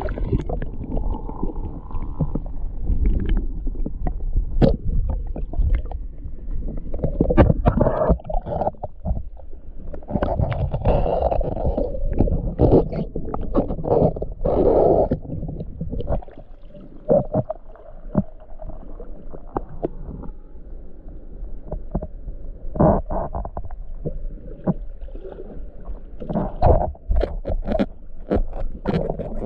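Muffled underwater sound picked up by a camera held submerged in a shallow creek: a low, continuous rumbling water noise with frequent short knocks and clicks.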